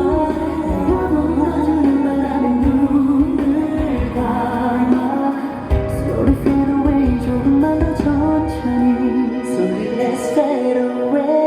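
Live pop ballad music: a band playing steadily, with a sung melody over it.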